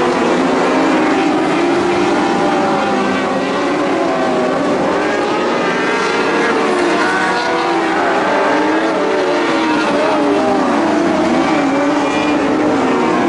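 Several Lightning Sprint race cars running together on a dirt oval, their engines rising and falling in pitch as they lap.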